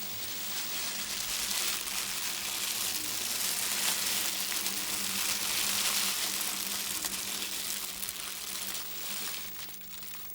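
A sound effect made by hand for the soundtrack: a continuous crackling, rushing hiss that swells over the first few seconds and fades near the end.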